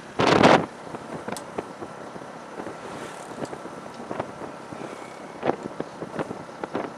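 Wind buffeting the microphone: a strong gust in the first half second, then a lower, steady rush with scattered clicks.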